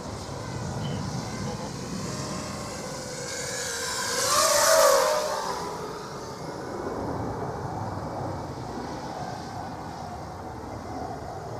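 ZMR250 FPV racing quadcopter's brushless motors and propellers whining in flight, the pitch shifting with throttle. About four and a half seconds in it swells loud as the drone passes close, its pitch dropping as it goes by.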